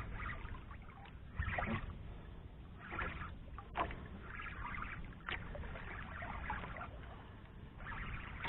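Water lapping and splashing against the hull of a small outrigger boat in irregular bursts, over a steady low rumble, with a few sharp clicks.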